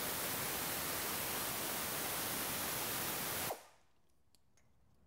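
Pneumatic air ratchet running on a 10 mm bolt of a brake line bracket, a steady hiss of exhaust air that cuts off suddenly about three and a half seconds in, followed by a few faint clicks.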